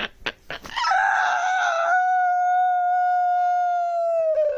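Cat's long, drawn-out yowl. It starts rough and wavering, settles into one steady held note, and drops in pitch as it trails off near the end.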